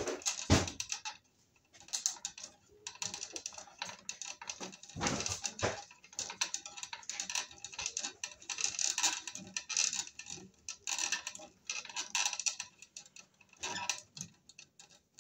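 Green grounding wire nut being twisted by hand onto bare copper ground wires: irregular clicking, scraping and rustling of wire and plastic, with a louder knock about half a second in and another around five seconds in.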